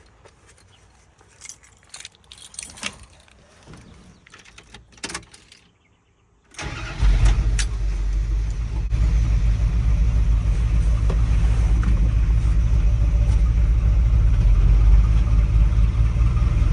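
A few light clicks and rattles, then about six and a half seconds in the V8 of a 1981 Dodge Ram 350 starts and settles into a rough idle. It sounds like a four-cylinder Model A: the Edelbrock 600 CFM carburetor's clogged idle circuit leaves one side running really lean.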